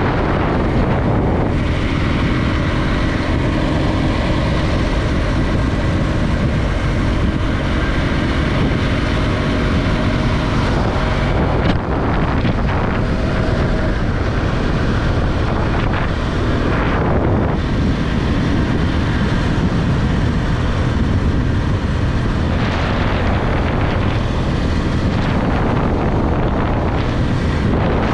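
Heavy wind rush on the microphone over a Bajaj Pulsar 200NS's single-cylinder engine running at a steady cruise. A few brief whooshes come from oncoming cars passing.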